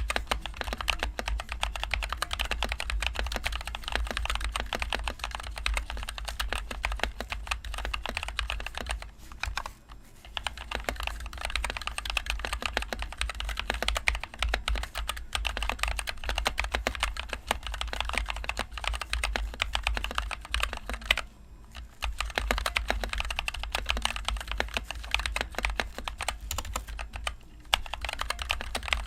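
Continuous fast typing on a NovelKeys NK65 Entry Edition mechanical keyboard with NovelKeys Cream linear switches and HyperX Pudding keycaps. The typing pauses briefly about ten seconds in and again about twenty-one seconds in.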